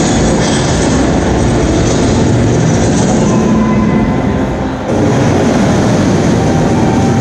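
Loud show soundtrack over the arena sound system: a dense, noisy rumble with no clear tune, which dips for a moment about four and a half seconds in and comes back abruptly about a second later.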